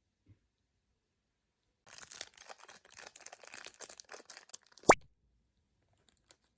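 Plastic toy packaging crinkled and torn open by hand for about three seconds, ending in one sharp, loud click or snap, with a few faint ticks after.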